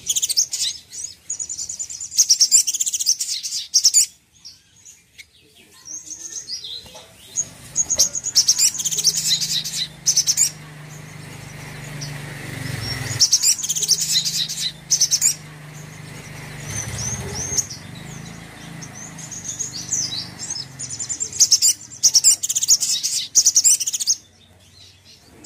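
A sunbird singing: repeated bursts of high, rapid twittering trills with short pauses between phrases. A low steady hum runs underneath from about seven seconds in.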